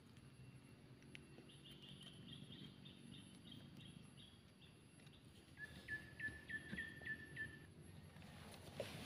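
Wild birds calling: a quick series of high, repeated notes, then a louder run of short, sharp rising notes at about four a second, over a faint low hum.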